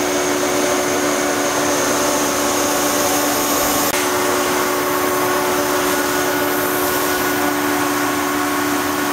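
CompAir Kellogg Cyclone 6000 30 HP rotary screw air compressor running steadily: a constant hum with a strong hiss over it.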